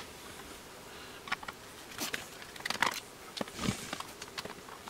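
A screwdriver and the sheet-metal case of a small UPS being handled during disassembly: a sharp click, then scattered light clicks and ticks, with one duller knock about three and a half seconds in.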